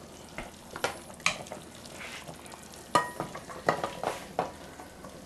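Serving ladle scraping and knocking in the pressure cooker pot and tapping a plate while potatoes are dished out: several light clinks, one about three seconds in ringing briefly.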